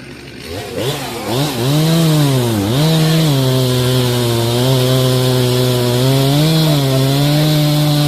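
Stihl chainsaw engine revving up and down a few times about a second in, then running steadily at high throttle, with a brief dip in revs near the end, as it cuts wood.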